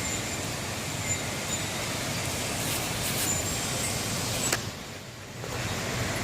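Storm wind gusting across the microphone, with a wind chime tinkling a few times. The wind eases for about a second near the end, then picks up again.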